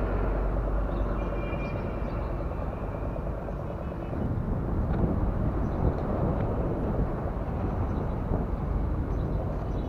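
Steady low rumble of distant engines, with a faint high tone for a moment about a second in.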